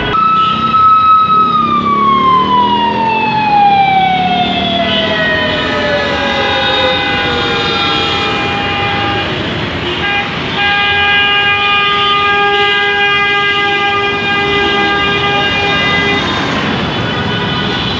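A siren holds a steady tone, then winds down in one long falling glide over about eight seconds. From about six seconds in, long steady horn tones sound over loud street traffic, with a short break about ten seconds in.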